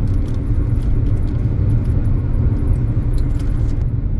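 Steady road and engine rumble of a car driving on a highway, heard from inside the cabin, with light scattered clicks and rattles on top.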